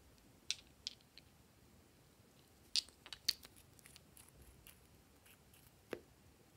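Scattered faint clicks and taps of small glass and plastic cosmetic containers being handled, a small screw-capped glass bottle among them being opened, with a cluster of clicks about three seconds in and a sharper click near the end.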